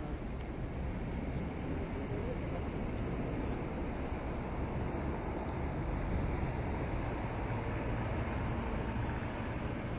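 Steady road-traffic noise at a city street crossing: a continuous low rumble of cars driving past.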